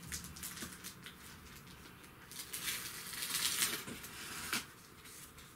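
Paper and card being handled: a run of short, crackly rustles, loudest in a stretch around the middle.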